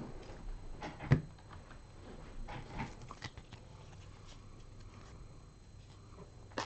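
Hands handling trading cards and card packs on a tabletop, giving scattered faint taps and rustles, with one sharper knock about a second in.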